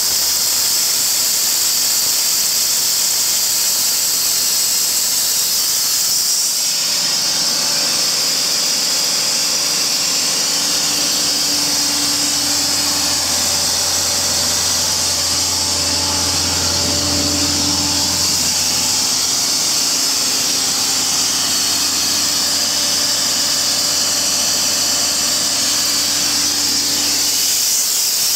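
Loud, steady high hiss of compressed air rushing out of a portable air compressor, with its John Deere 4045DF four-cylinder diesel engine running steadily underneath.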